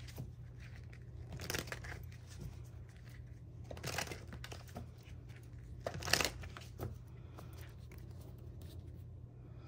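Oracle cards being handled on a table: three short papery swishes and slides about two seconds apart, over a steady low hum.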